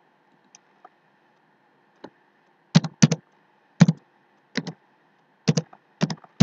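Computer keyboard typing: sharp keystrokes, some in quick pairs, about one every half second to a second, starting about three seconds in after a few faint clicks.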